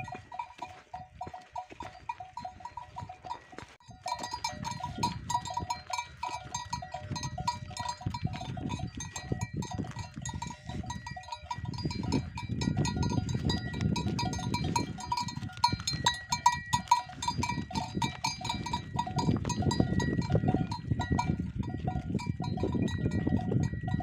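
Bells worn by cattle clanking and ringing continuously as the animals walk, with many quick, irregular strikes. The ringing grows louder about four seconds in, over a low, uneven noise that is stronger in the second half.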